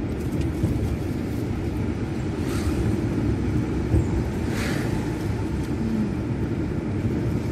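Steady low rumble of a car's engine and tyres on the road, heard from inside the moving car's cabin, with a short click about four seconds in.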